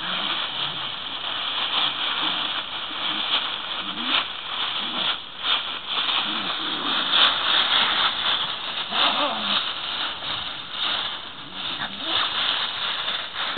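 Dry fallen leaves rustling and crackling as two small dogs wrestle and scramble through them, with a few short low vocal sounds now and then.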